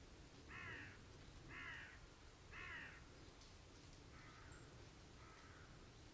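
A crow cawing three times, about a second apart, then three fainter caws in the second half.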